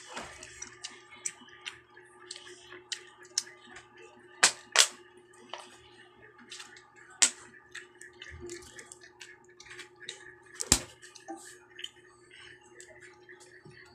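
Close-up eating sounds of children eating rice by hand: wet mouth clicks and smacks with scattered taps, a few sharp louder clicks among them (two in quick succession about four and a half seconds in, another near eleven seconds), over a faint steady hum.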